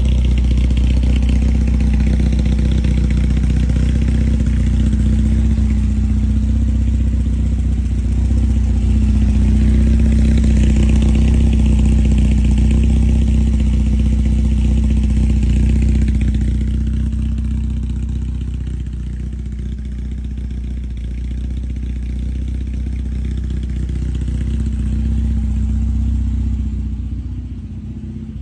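A motor vehicle's engine running steadily with a deep low note, getting quieter about sixteen seconds in.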